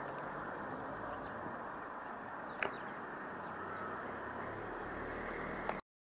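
Outdoor street ambience: a steady dull hum of distant traffic with faint bird chirps and two sharp clicks, one about two and a half seconds in and one near the end. The sound cuts off abruptly just before the end.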